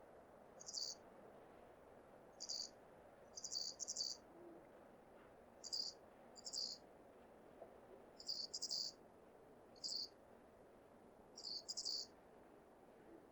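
Male Ezo flying squirrel's high-pitched breeding-season calls to attract a female, played back at half their original pitch. They come as short bursts of rapid chattering squeaks, singly or in quick pairs, about every second or two.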